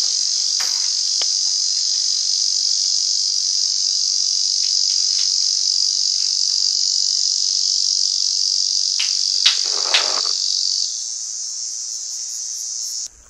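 Dense, steady, high-pitched chorus of insects in summer forest, with a few faint clicks and a brief rustle about ten seconds in.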